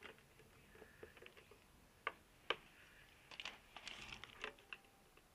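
Faint scattered clicks and taps of hand tools and screws being handled: two sharper ticks about two seconds in, then a quick run of small clicks near the end.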